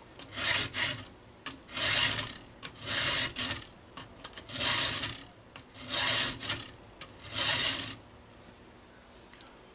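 Round chainsaw file in a file guide rasping across a saw-chain cutter tooth: about seven strokes roughly a second apart, with light clicks as the file comes back between them, stopping about eight seconds in. The tooth is being filed back a long way before the file reaches the gullet.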